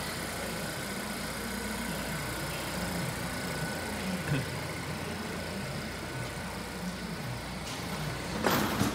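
2018 Volvo S90's 2.0-litre four-cylinder engine idling steadily. A short clunk comes near the end.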